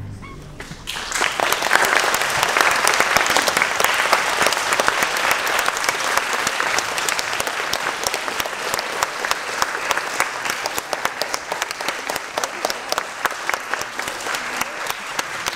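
Audience applauding a school concert band. The tail of the band's last chord fades away, and about a second in the clapping starts and goes on steadily.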